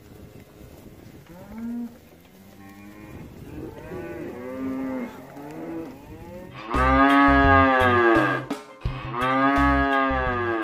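Cattle mooing: a series of moos, the early ones quieter, then two long, loud moos in the second half.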